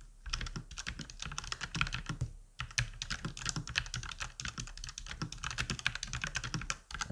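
Fast typing on a mechanical keyboard with red switches and round typewriter-style keycaps: a dense run of keystroke clacks, with a short pause about two and a half seconds in. The sound is a bit muffled and quieter, which the owner puts down to the denser keycaps.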